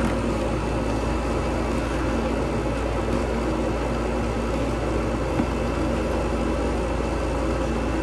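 Bryant gas furnace running with its burners lit: a steady rush of gas flame over an even motor hum.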